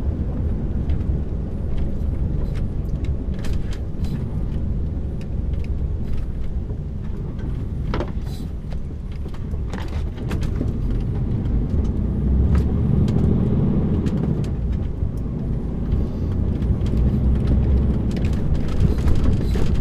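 Articulated lorry driving in low gear, its engine and road noise heard from the cab, with twigs and low branches repeatedly ticking and scraping against the trailer roof and its air vents.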